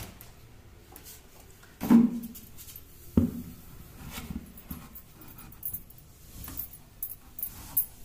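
Handling of a washed blanket in a front-load washing machine drum: soft rustling and small clicks, with a loud short sound about two seconds in and a sharp knock about a second later.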